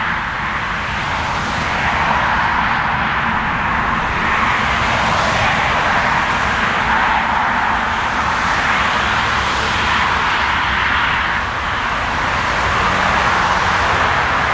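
Airbus A320neo (A320-271N) landing, its Pratt & Whitney geared turbofan engines heard as a steady, even roar with no distinct tones, swelling slightly about two seconds in.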